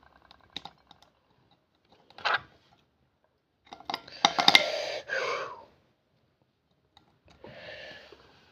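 Scattered clicking and scraping, with a louder run of sharp clicks and rasping about four seconds in and a softer rustle near the end.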